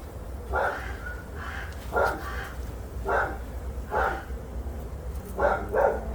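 A dog barking, six short barks about a second apart, the last two in quick succession, over a steady low rumble.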